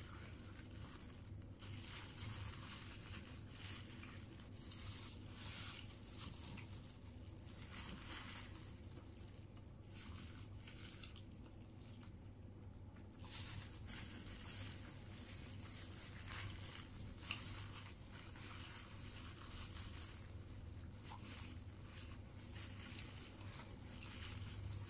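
Eating by hand: a thin plastic food glove and the paper wrapping crinkle and rustle in irregular short bursts as rice is gathered, with soft chewing, over a steady low hum.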